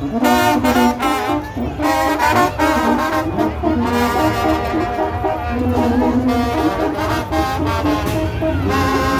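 Brass band playing: sousaphone, trumpets and other brass over a drum, with drum strokes cutting through most strongly in the first couple of seconds.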